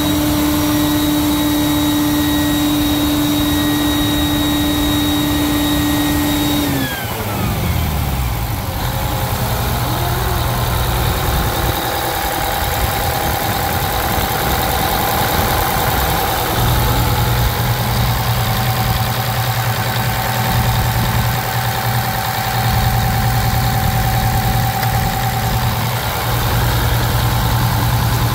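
Detroit Diesel 8V-92 two-stroke V8 diesel held at high revs with a steady high whine. About seven seconds in the throttle is let off, and the pitch and whine drop together as the engine falls back to a steady idle.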